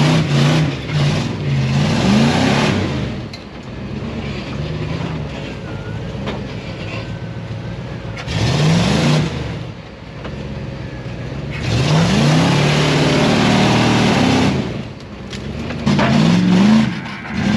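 Off-road 4x4 engine running and revving up in about four separate surges, the pitch climbing each time before it drops back.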